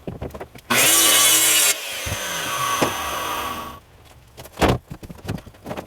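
A saw cutting through wood in two runs: a louder one about a second long, then a quieter one of about two seconds, with a few knocks around them.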